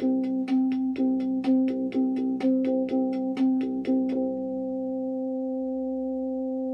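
Instrumental music: a steady held drone note with a rhythmic pattern of short struck notes over it, about two a second, which stops about four seconds in and leaves the drone ringing on.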